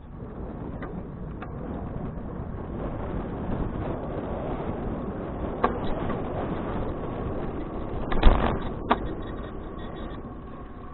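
Riding noise of a Fuji Touring bicycle: a steady rush of wind and tyre noise that builds over the first few seconds, with scattered sharp clicks and a louder clatter of knocks about eight seconds in.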